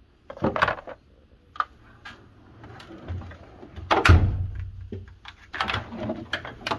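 Steel tool-cabinet drawers being slid open and shut, with a run of clunks and rattles from the drawers and the tools inside them. The loudest clunk comes about four seconds in, and a quick cluster of rattling knocks follows near the end.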